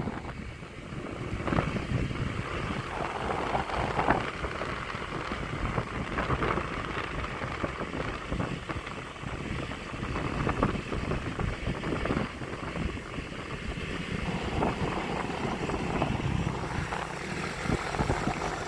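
Rumbling noise of a moving vehicle, with wind buffeting the microphone in uneven gusts.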